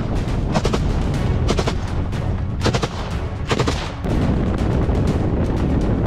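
Rifle shots fired in quick clusters from a moving off-road vehicle during the first four seconds, over the heavy low rumble of the vehicle driving across rough ground. The rumble grows louder about four seconds in.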